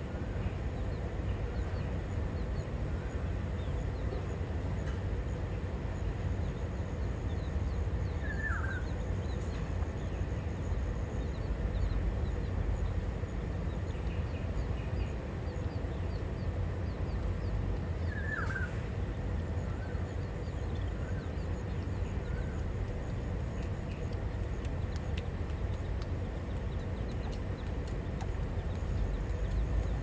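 Steady low rumble of city background noise, with two short bird chirps about ten seconds apart.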